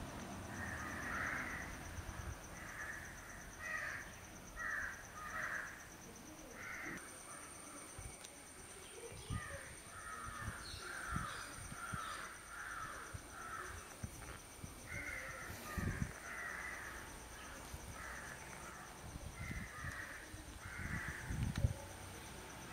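Crows cawing in runs of several harsh calls with short pauses between, alongside a few dull low thumps.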